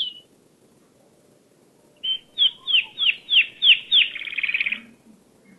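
A small songbird singing one phrase after a short pause. The phrase is a series of about six clear notes, each sliding down in pitch, about three a second, ending in a fast trill.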